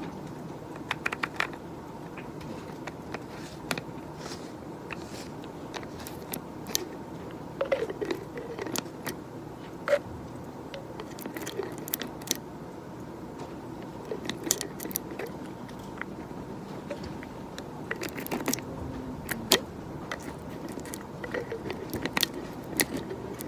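Scattered small clicks and taps of objects handled at a desk, coming irregularly over a steady faint office background, with busier clusters in the middle and near the end.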